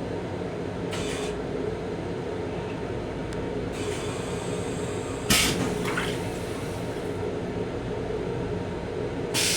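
Steady rumble and hum inside a Long Island Rail Road M7 electric railcar. Short hissy bursts come about a second in, around four seconds, and near the end, with a louder one a little past halfway.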